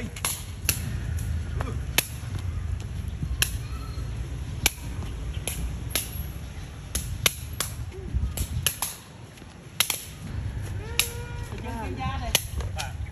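A Khmer kick-shuttlecock (sey) being kicked back and forth between two players: a sharp snap of foot against shuttlecock roughly once a second, unevenly spaced, over a low steady rumble.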